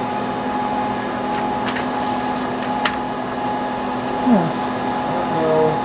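Colour laser printer running, a steady mechanical hum with a few faint clicks.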